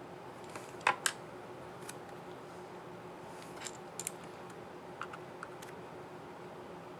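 Small, scattered plastic clicks from an HP ZBook FireFly 14 G7 laptop keyboard as a keycap and its scissor mechanism are handled, with the loudest pair of clicks about a second in.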